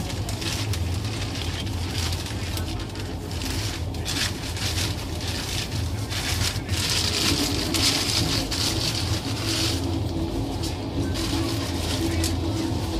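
A passenger train coach running at speed, heard from on board: a steady low rumble with wheel-on-rail clatter and a hiss that swells in the middle, and a steady hum joining in the second half.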